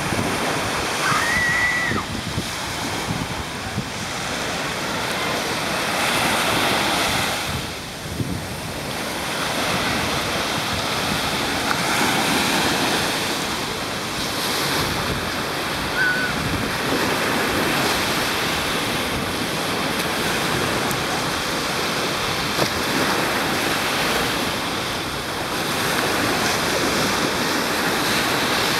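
Small waves breaking and washing up a sandy beach: a steady rush of surf that swells and eases every few seconds, with wind on the microphone.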